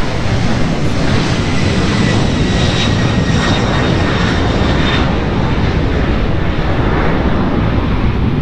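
Jet airliner taking off, its engines at takeoff thrust: a loud, steady rush with a thin high whine over the first few seconds.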